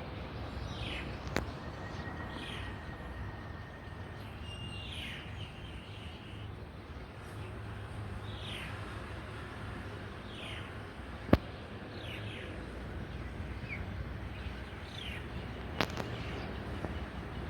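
Wild shrike calling: a short, falling call repeated about every one to two seconds over a steady low background hum, with a few sharp clicks, the loudest about two-thirds of the way through.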